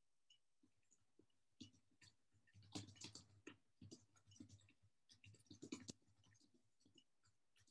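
Faint, irregular clicks and scratches over near silence, busiest in the middle few seconds.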